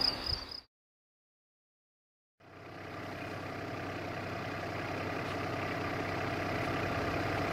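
Crickets chirping briefly, cut off into a second or two of silence, then an engine idling steadily, fading in and slowly growing louder.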